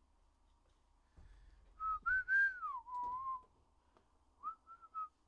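A person whistling a short, wandering tune in a few phrases, the pitch gliding up and down.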